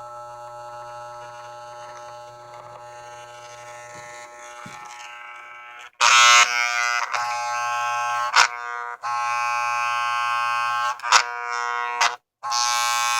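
Electric hair clippers buzzing with a steady hum, their freshly sharpened blades just oiled; the buzz is quieter for about the first six seconds, then much louder, with a few brief cut-outs. The blade is set too tight, as the owner finds.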